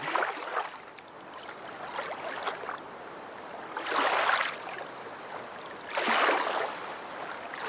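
Water swishing in swells that rise and fade about every two seconds.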